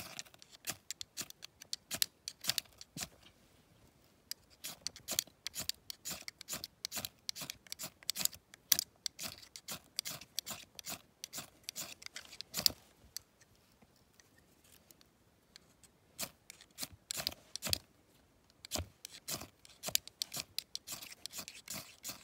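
A hand-held fire starter being struck again and again over tissue-and-twig tinder to light a campfire: quick, sharp, scraping strikes in irregular runs, with a quieter pause about two-thirds of the way through.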